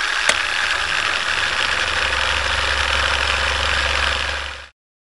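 Film projector sound effect: a steady mechanical whirr and clatter over a low hum, with one sharp click at the start, cutting off abruptly near the end.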